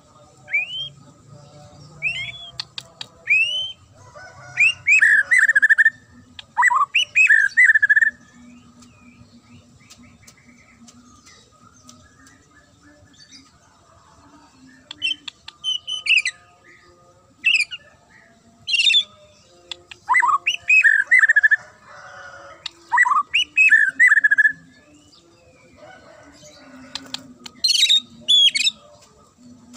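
White-rumped shama (murai batu) singing in bursts of sharp, clear whistled phrases: quick rising whistles and rapid runs of notes. There is a lull of several seconds between about 8 and 15 seconds in, then more phrases.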